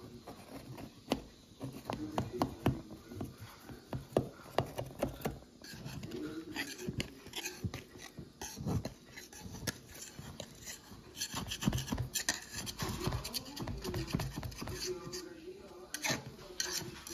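A knife scraping and rubbing around the sides and centre tube of an aluminium cake pan, loosening a baked cassava cake, in irregular scratchy strokes with small clicks of the blade against the metal.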